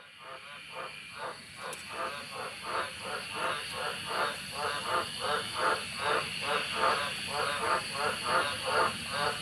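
Frogs calling at night in the wet Australian bush: loud croaks repeated in a fast, even series of about three calls a second, over a steady high-pitched background chorus. The calling fades in over the first second and grows slightly louder.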